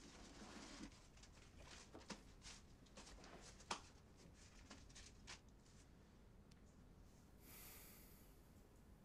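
Near silence: quiet room tone with a few faint, scattered clicks and a brief soft hiss near the end.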